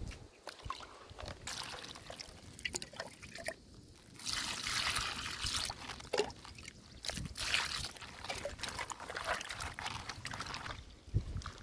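Water splashing and sloshing in a plastic basin as hands rub and turn napa cabbage leaves in it, washing them. The splashing comes in uneven bursts and is busiest about four to six seconds in.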